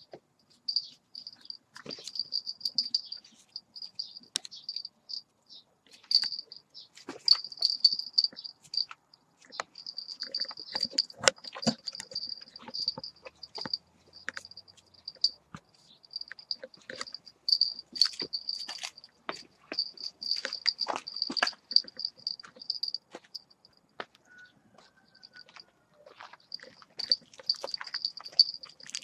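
Crickets chirping in a continuous high, pulsing trill, with irregular close scuffs and sharp clicks over it.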